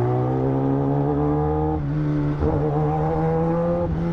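Kawasaki ZX-10R's inline-four engine pulling hard through the gears, its pitch climbing steadily, dropping back at an upshift about two seconds in and again near the end.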